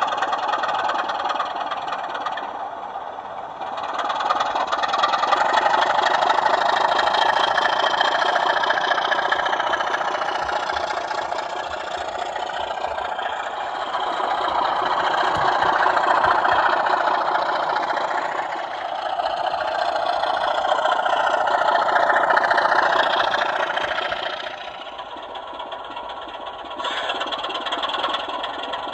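Diesel engine sound of sound-fitted model BR Class 24 locomotives, played from their on-board sound decoders and speakers, swelling and easing several times as the engines work up and settle back.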